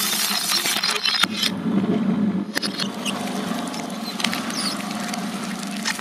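Twin-shaft shredder running with a steady hum while glass light bulbs shatter and crunch between its blades for about the first second. After that, softer gummy candy goes through the blades with scattered sharp clicks over the motor hum.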